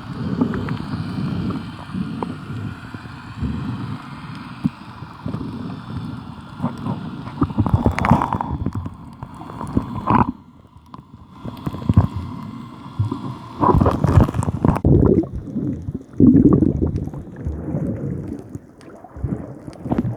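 Water sloshing and gurgling around a camera at or just under the sea surface, with a few louder splashes.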